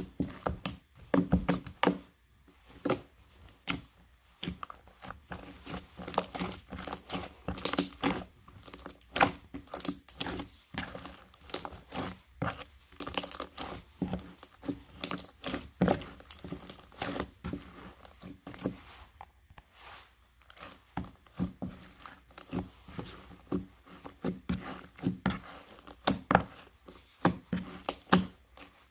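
Slime being squeezed and worked by hand, giving a dense run of irregular crackles, pops and small clicks.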